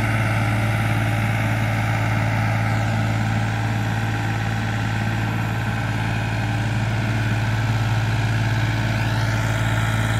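Farmtrac 45 tractor's diesel engine running steadily under load as it drags a tillage implement through the soil.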